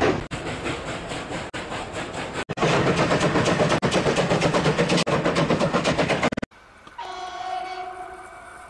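Train sounds: a fast, even rhythmic clatter of a train running, which breaks off abruptly about six and a half seconds in. It is followed by a quieter, steady train warning signal that holds several pitches at once.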